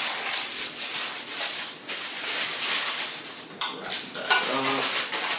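Tissue paper rustling and crinkling as it is handled and wrapped around an object by hand.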